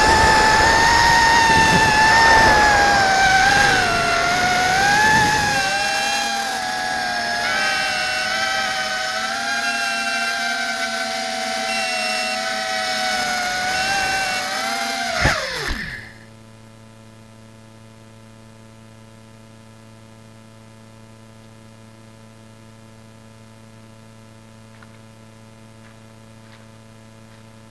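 Brushless motors and propellers of a ZMR150 mini FPV quadcopter whining in flight, heard from its onboard camera, the pitch wavering with the throttle. About fifteen seconds in there is a short knock and the motors wind down fast and stop, the quad coming to rest on the ground; after that only a faint steady electrical hum is left.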